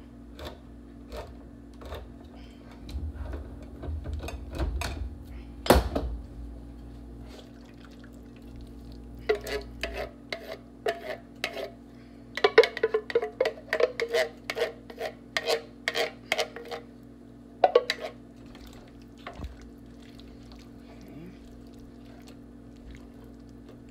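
Utensils clinking against a stainless steel skillet as a ground meat and pumpkin mixture is stirred. Then a spoon knocks and scrapes inside a large metal can of tomato sauce as it is emptied into the pan, in a run of quick clatters a little before halfway through. A steady low hum runs underneath.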